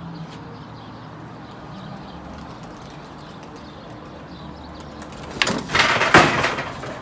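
A loud clatter and rustle of several quick strokes, about five and a half seconds in and lasting about a second, over a quiet background hum.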